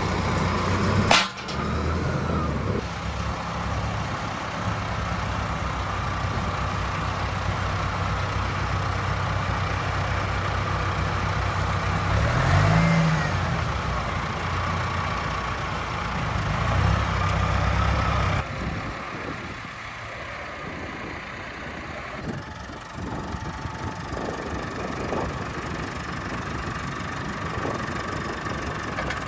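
Massey Ferguson 5711 tractor's diesel engine running, with a short rise in revs about twelve seconds in and a sharp knock about a second in. The low engine note drops away about eighteen seconds in.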